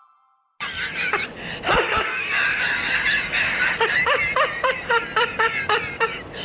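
A person snickering: breathy, suppressed laughter in a run of short giggles that starts about half a second in.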